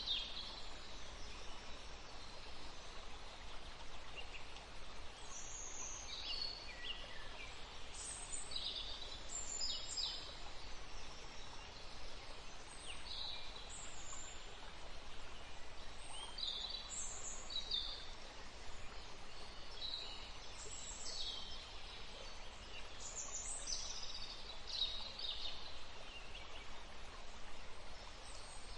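Small birds chirping and singing in short, high calls and quick glides, scattered every second or two, over a steady background hiss.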